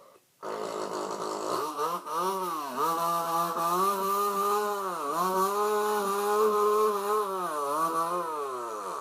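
A person's voice imitating a weed eater (string trimmer) running: a buzzing drone that starts about half a second in, its pitch dipping and climbing back up three times like the engine revving, then stopping at the end.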